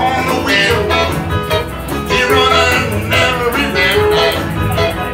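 Live country band music: electric guitar and band accompaniment with a woman singing the lead vocal.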